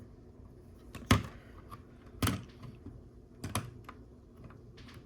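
Hard plastic LEGO pieces clicking and tapping as they are handled and pressed together, with three sharp clicks about a second apart and softer ticks between them.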